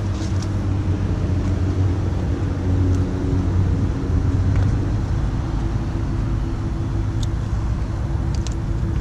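Steady hum of cooling fans during Tesla Supercharging, with low steady tones throughout. A few faint ticks come near the end.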